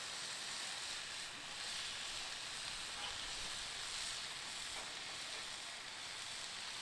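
New York strip steak sizzling steadily on a hot Blackstone flat-top griddle.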